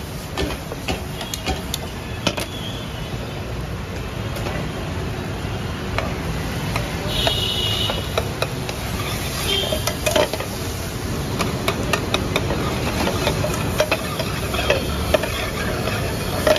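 Butter melting and frying in hot oil in a steel frying pan, with a steady sizzle. A metal spatula stirs it and clinks against the pan now and then.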